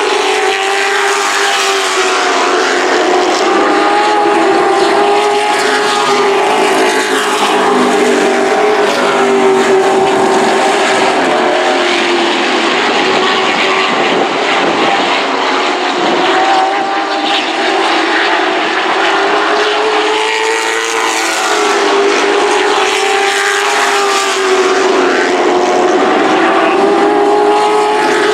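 Super truck race engines running hard around a paved oval track, several trucks together, their engine note rising and falling in slow waves every several seconds as the pack laps the track.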